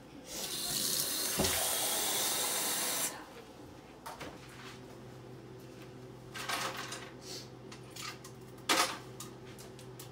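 Kitchen faucet running into a stainless steel sink for about three seconds, then shut off abruptly. A few light knocks follow, one sharper near the end.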